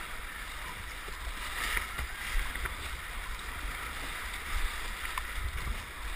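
Whitewater rapids rushing steadily around a downriver racing kayak, with intermittent splashes from paddle strokes and a low buffeting rumble of water against the boat.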